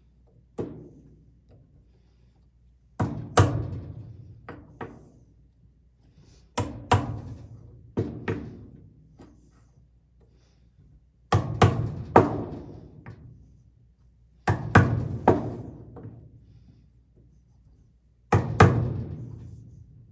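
Hammer blows on wood, in groups of two or three sharp knocks every three to four seconds, each with a short ringing tail.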